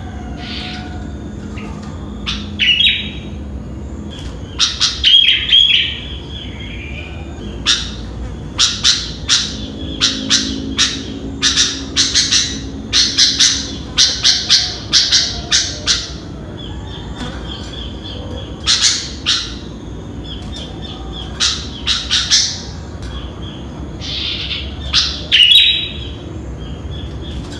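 Sooty-headed bulbul (kutilang) calling in bursts of short, sharp chirping notes, with a long rapid run of notes in the middle and shorter phrases before and after.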